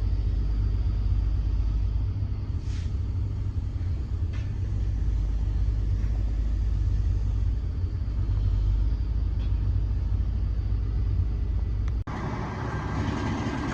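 Diesel engine of a Kenworth T800 self-loading logging truck running with a steady low rumble while poles are loaded, with a few faint knocks. About twelve seconds in the sound changes abruptly to a brighter engine note.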